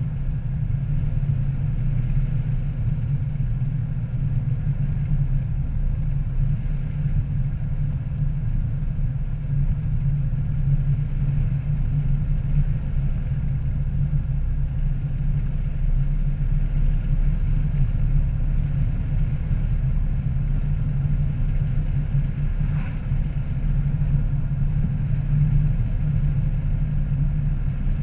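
A car cruising steadily on a paved highway: a constant low rumble of engine and road noise, with no change in pace.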